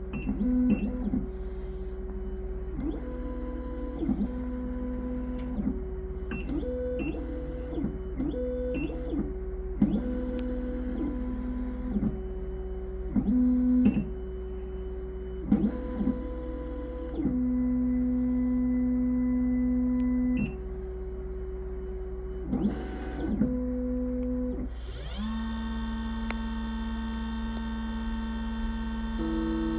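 Triton computerised key-cutting machine's stepper motors moving the carriage, a whine that steps between a few fixed pitches every second or so, with small clicks, as the machine runs its cutting cycle on a key blank. Near the end a steadier, hissier running sound takes over.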